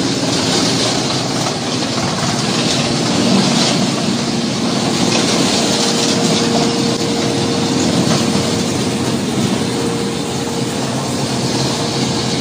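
Wood-waste and tree-branch shredder running with its belt conveyor: a loud, steady mechanical noise with a constant hum, a higher steady tone becoming clearer about halfway through.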